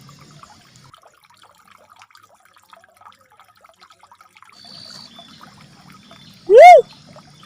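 A faint trickle of water, then near the end one loud, short whoop that rises and falls in pitch, a single note of a recorded uncal merah (cuckoo-dove) lure call.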